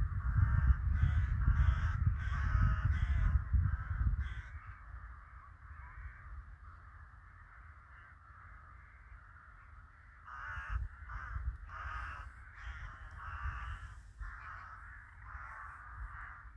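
Crows cawing: a run of harsh caws in quick succession, then a lull of a few seconds, then another run of caws from about ten seconds in. A low rumble sits under the first caws.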